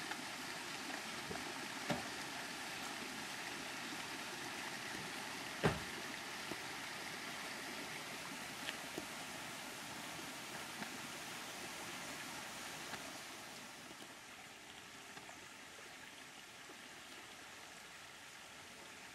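Steady rush of flowing water, which softens about two-thirds of the way through, with a few light knocks, the clearest about six seconds in.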